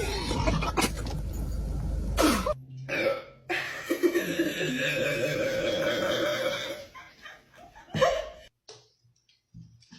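Loud burping: a rough burp that ends with a falling pitch about two and a half seconds in, then a long, drawn-out pitched burp of about three seconds. A short, sharp burst comes near the end.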